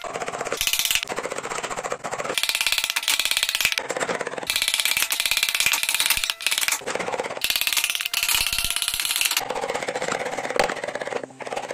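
Hand carving gouges cutting into a wooden panel, a fast, even rattle of many small strokes a second that shifts in tone every second or two as the blade works a new spot.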